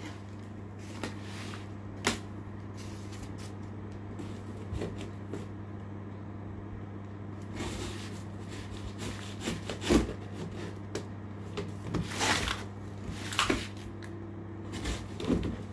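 Cardboard packaging and parts being handled and opened: scattered knocks, taps and rustles, loudest about ten seconds in and again a couple of seconds later, over a steady low hum.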